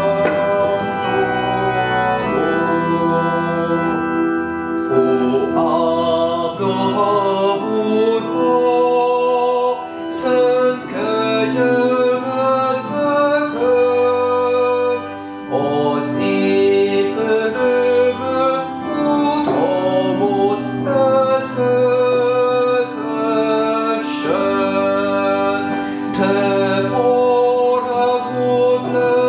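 Organ playing a hymn in full chords with pedal bass, accompanying a man's voice singing the melody verse by verse; the notes change about once a second.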